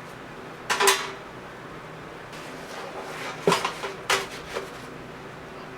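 Kitchenware being handled and set down: a sharp clatter about a second in, then two more clinks a little after three and four seconds, each with a short ring.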